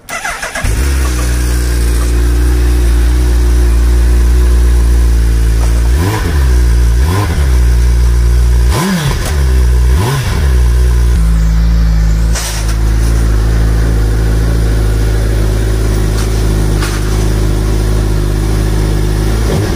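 2021 Suzuki Hayabusa's 1340 cc inline-four on its stock silencer, starting up and running at a steady idle. About six to ten seconds in, four quick throttle blips rise and fall in pitch, then it settles back to idle.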